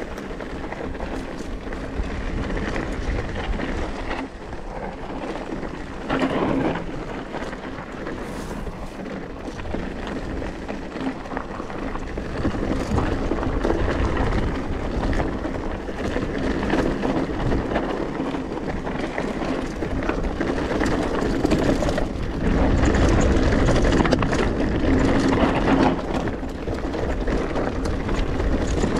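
Mountain bike riding down a dirt trail: wind buffeting the camera's microphone over tyres rolling and the bike rattling on the rough ground, getting louder in the second half.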